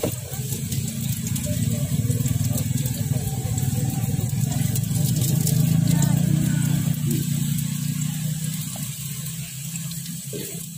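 A motorcycle engine running on the street close by: a low rumble that grows louder to about the middle and then fades away.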